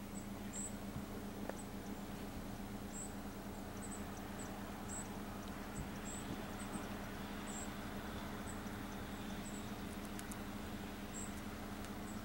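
Douglas squirrel gnawing and nibbling scales off a green giant sequoia cone: faint chewing and crunching. Alongside it run a steady low hum and short high-pitched chirps that recur about once or twice a second.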